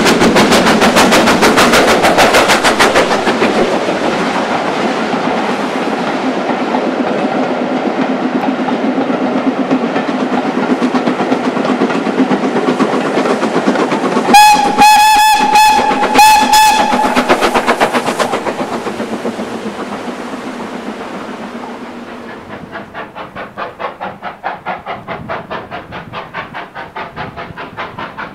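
Steam locomotives working trains past: first the GWR Castle-class 4-6-0 'Nunney Castle' with a rapid chatter of exhaust beats, then about fifteen seconds in a steam whistle sounded in several short, high blasts. In the last few seconds a more distant engine's exhaust beats come steadily, about three a second.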